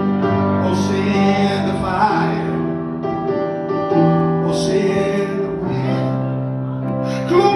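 Live gospel music: held keyboard chords under singing.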